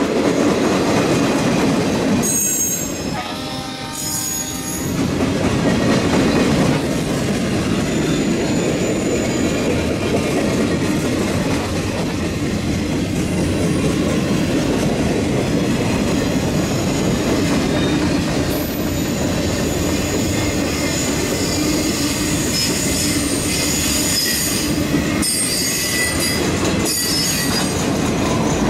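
A freight train rolling slowly by in reverse, its gondolas and caboose rumbling and clattering over the rails with high wheel squeal now and then. A horn sounds briefly a few seconds in.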